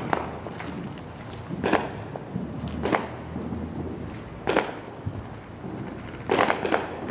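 Scattered fireworks bangs: about six sharp reports at uneven gaps of one to two seconds, two of them close together near the end, each trailing off in a short echo.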